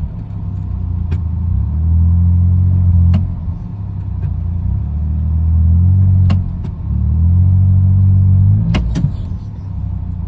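Vehicle engine and drive rumble, swelling and easing every couple of seconds, with a few sharp knocks scattered through it and a louder pair near the end.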